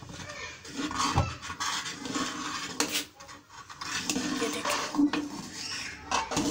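A metal spoon clinking and scraping against the inside of a pressure cooker as thick sabudana kheer is stirred, with a few sharp knocks of spoon on metal.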